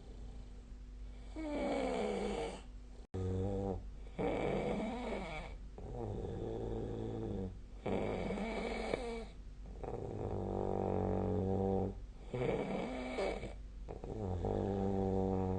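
A sleeping person snoring, a run of pitched snores about one every one and a half to two seconds.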